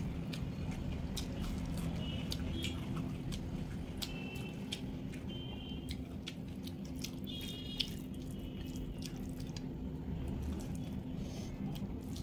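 Close-miked eating sounds of a person eating a rice meal by hand: chewing with many small wet clicks and smacks, scattered irregularly, over a steady low hum.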